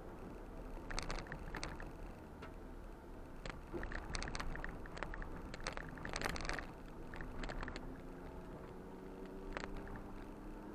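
Ford Bronco running steadily at low speed on a dirt trail, its engine note rising slightly near the end. Over it come bursts of sharp clicks and rattles from the vehicle jolting over rough ground, clustered in the first seven or so seconds, with one more near the end.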